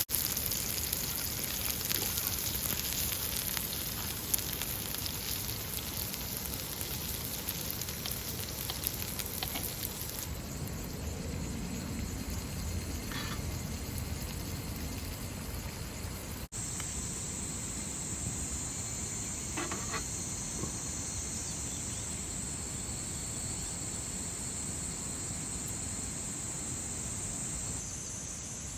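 Food sizzling and crackling in a hot pan for about the first ten seconds. After cuts, a steadier, quieter hiss with a thin high tone runs on.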